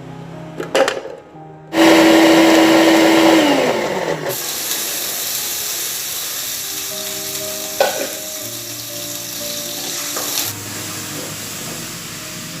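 A small electric kitchen blender or chopper starts suddenly and runs at a steady pitch for about a second and a half, then winds down. It is followed by a steady hiss that stops abruptly near the end.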